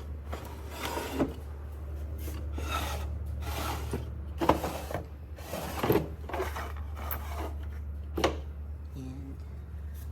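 Wooden drawers of an old sewing machine cabinet sliding open and shut: a string of short scraping slides, with sharp knocks about four and a half, six and eight seconds in.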